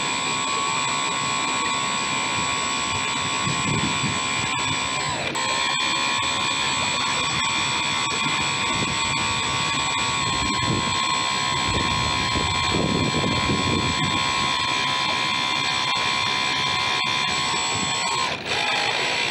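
RC model boat's outboard motor running with a steady high-pitched whine; the pitch drops and recovers about five seconds in and dips briefly again near the end, as the throttle is eased and opened. Water splashes and rushes along the hull underneath, loudest about two-thirds of the way through.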